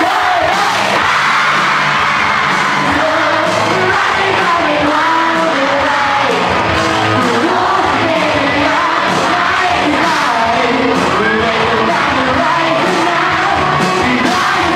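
Live rock band playing: a lead vocalist singing into a microphone over electric guitars and a drum kit.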